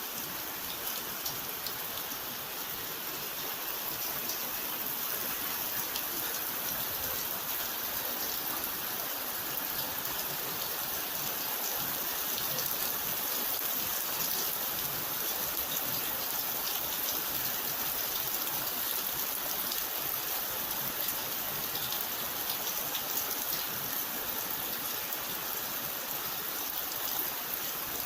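Steady rain falling: a dense, even hiss with a fine patter of drops.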